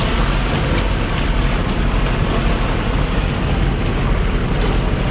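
Steady rush of churning water in a small boat's wake at slow trolling speed, about 3 knots, over a low steady rumble.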